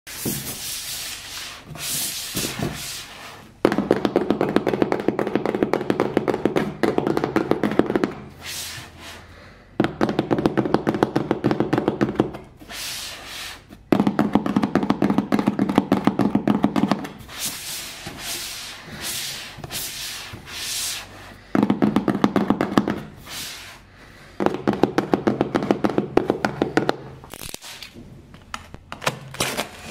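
Fingers tapping rapidly on a cardboard box, in runs of a few seconds each, with quieter scattered taps between the runs.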